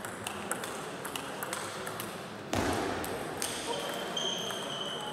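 Table tennis rally: the celluloid ball clicks sharply back and forth off the paddles and table several times. About two and a half seconds in there is a dull thump, and then a few high held tones.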